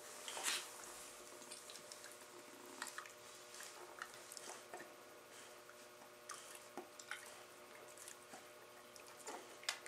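Dogs mouthing and play-biting each other: faint wet smacking and chewing sounds with scattered light clicks, and no growling or barking.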